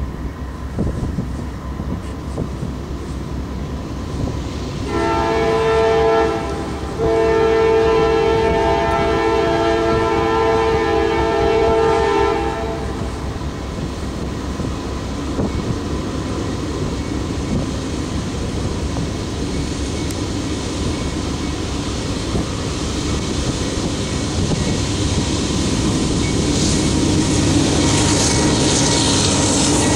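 CSX GE AC4400CW diesel-electric locomotive sounding its multi-tone air horn: a short blast about five seconds in, then a long blast lasting about five seconds. Its diesel engine runs under load as it pulls away from a standing start with empty coal cars, and the engine and wheel noise grow louder toward the end as it comes closer.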